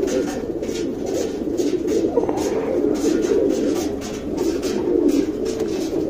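Domestic pigeons cooing, several overlapping coos at once in a steady murmur.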